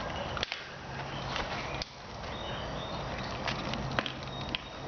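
Scattered small clicks and rustles of handling as baking soda is worked into a plastic water bottle, over a faint low steady hum.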